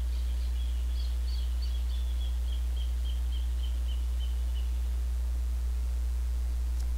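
Steady low hum. Over it, for the first four and a half seconds, a faint run of high chirps comes at about three a second, falling slightly in pitch. A single faint tick sounds near the end.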